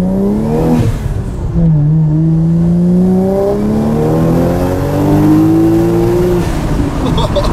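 Toyota Soarer engine accelerating through the gears, heard from inside the cabin. The pitch climbs, drops with a gear change about a second in, rises steadily through a long pull, then falls away near the end as the throttle comes off.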